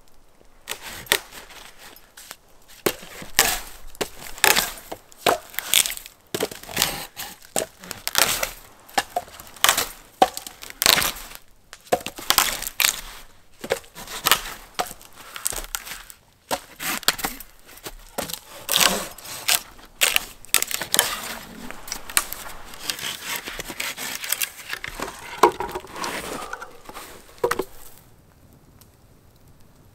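Dry firewood being chopped, split and broken: a long run of sharp cracks and knocks of wood, about one or two a second, stopping about two seconds before the end.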